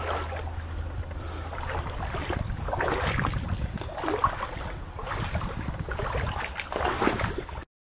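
Footsteps and the rustle of leafy undergrowth brushing past, with low wind rumble on the microphone.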